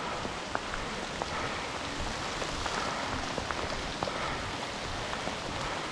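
Steady rain falling, with scattered sharper ticks of single drops striking.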